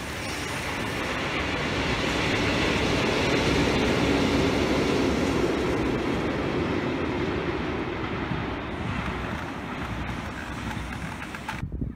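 Freight train of tank wagons hauled by an electric locomotive passing by, the wheels and wagons rolling on the track. It swells to a peak about four seconds in, then fades as it moves away, and cuts off suddenly near the end.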